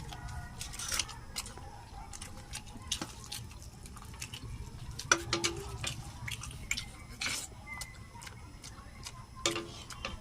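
Eating chicken: irregular clicks and smacks from chewing and handling food, some sharper than others, over a steady low hum.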